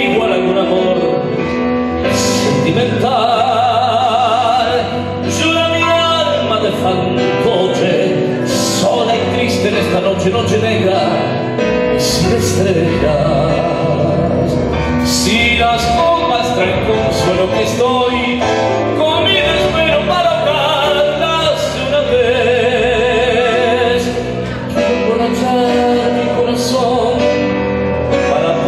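Tango played live on bandoneón and digital piano, with a man singing over it through a handheld microphone.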